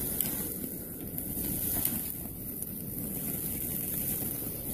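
Open charcoal fire burning under chicken on a grill grate: a steady low rumble with a few faint crackles.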